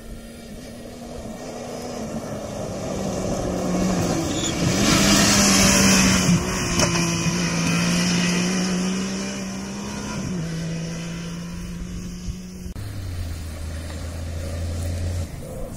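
Cross-country rally vehicle approaching and passing at speed on the stage, its engine at high revs with the pitch stepping at gear changes. It is loudest about five seconds in, with a rush of tyre and gravel noise. Near the end a lower engine note abruptly takes over.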